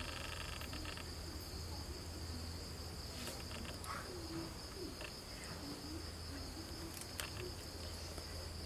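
Steady high chirring of crickets, with a short pulsing trill in the first second and a few faint clicks.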